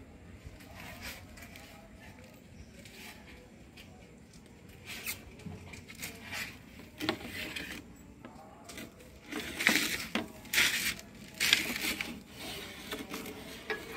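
Irregular rubbing and scraping noises, sparse at first and growing louder and more frequent in the second half.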